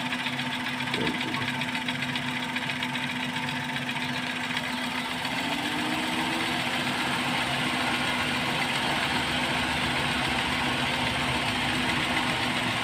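Car engine idling steadily under the open bonnet, a constant low hum running on without a break, a little louder in the second half.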